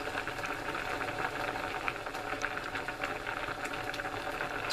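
Pot of sweet potatoes, carrots and parsnip boiling on the stove: steady bubbling with a low hum and small ticks.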